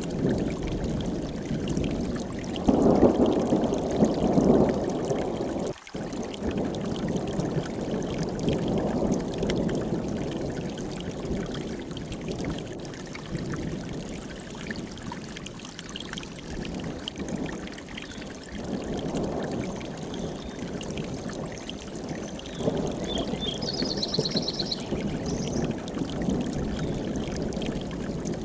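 Mountain stream rushing steadily, swelling louder now and then, with a brief break in the sound about six seconds in. A bird gives a short run of quick high chirps near the end.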